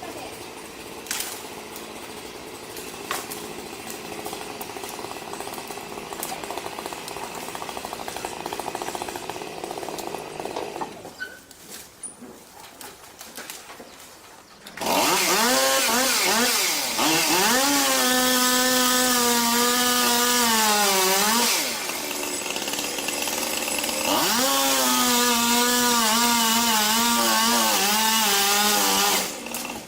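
Two-stroke chainsaw at work. After a quieter stretch of lower running, it revs up to full throttle about halfway through and holds, eases off briefly, revs up again, and stops just before the end.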